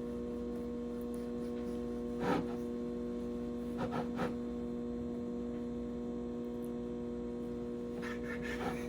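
Steady electrical hum, a few even pitches held throughout, with a few soft knocks at scattered moments as a knife cuts through a pack of sweet Hawaiian rolls on a cutting board.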